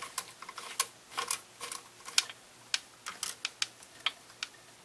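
Irregular light clicks and taps, several a second, from the parts of a tactical air-rifle stock being handled and fitted on the rifle.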